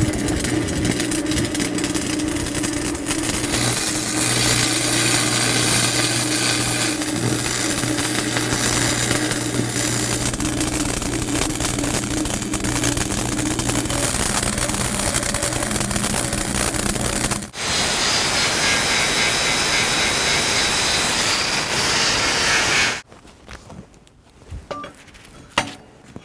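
Stick welding arc crackling steadily with a low hum. It breaks off about 17 seconds in, is struck again, and stops about 23 seconds in. A few light clicks and taps follow.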